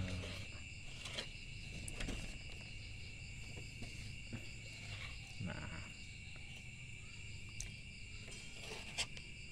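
Crickets chirping steadily in a high-pitched, pulsing chorus, with a few soft clicks of a metal spoon scraping young coconut flesh from its shell.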